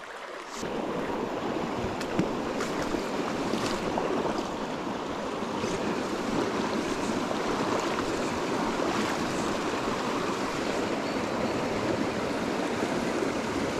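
Shallow rocky stream running steadily over a small riffle, with a few faint clicks.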